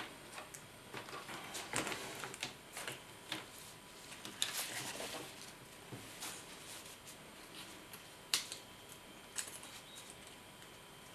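Small, irregular clicks and taps of plastic laptop parts being handled and pressed together, a dozen or so sharp ticks spread unevenly with a louder click about four and a half seconds in and another near eight seconds in.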